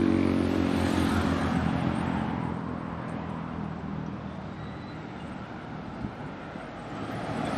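Street traffic: a motor vehicle's engine is loud at first and fades away over the first couple of seconds as it passes. A quieter hum of traffic follows, and it grows louder again near the end.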